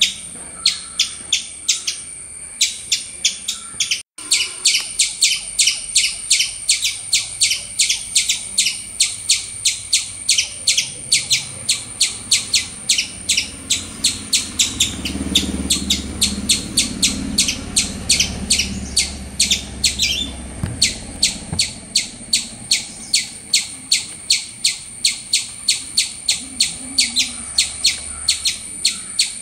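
An even, unbroken series of high chirps, about three a second, over a steady high-pitched tone.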